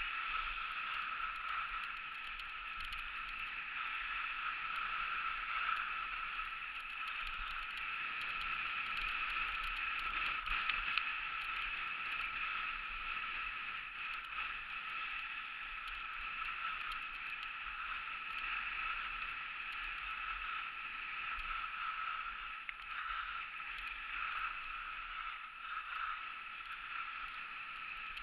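Skis running steadily over groomed piste snow with air rushing past the skier: a continuous hiss that swells and eases a little with the turns.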